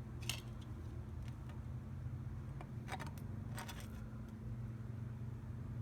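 Microwave oven running with a steady low hum, broken by a few sharp crackles, about a third of a second in and again around three and three and a half seconds in, as the CD inside arcs and sparks.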